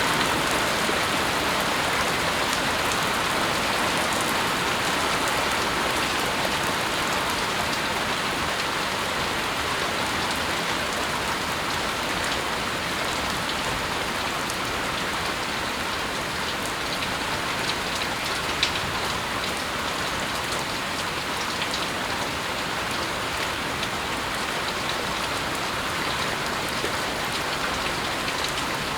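Steady rain falling and pattering on surfaces, with scattered individual drops ticking.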